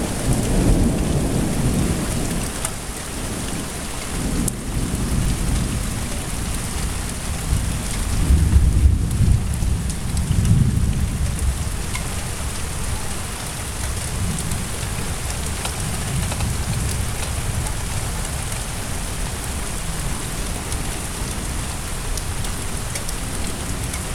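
Thunderstorm: steady heavy rain with deep rolling thunder, which rumbles at the start, swells again loudest from about eight to eleven seconds in, then fades, leaving the rain.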